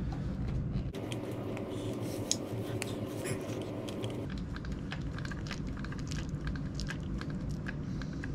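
Grease gun pumping grease through its hose into a trailer wheel hub's bearing fitting: a run of short, irregular clicks and small mechanical knocks of the gun and fitting, over a low steady hum.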